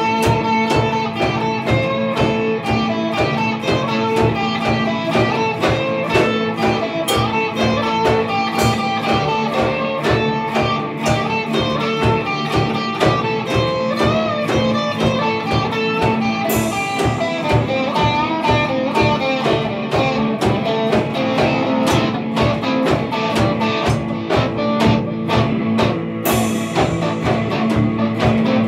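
Instrumental rock played live on two electric guitars and a drum kit: a steady drum beat under sustained, overdriven guitar, with a cymbal crash about halfway through and another near the end.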